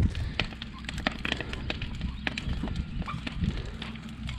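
Bonfire of torn-down chicken coop wood crackling, with irregular sharp pops over a low steady rumble.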